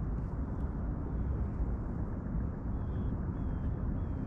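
Steady low rumbling noise of wind on the microphone while an angler holds his rod over open water. A few faint, short, high chirps come in the second half.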